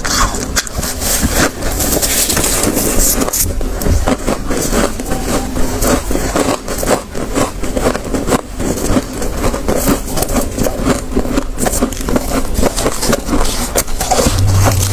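Close-miked chewing of soft, snow-like frost: many crisp crunches and squeaky grinding in quick, uneven succession. Near the end, gloved fingers dig into the heaped frost on the plate.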